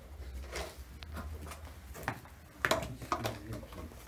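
Paper cup rustling and clicking as a ring-tailed lemur noses into it and handles it on wood shavings: a few irregular short clicks and scrapes, the sharpest nearly three seconds in.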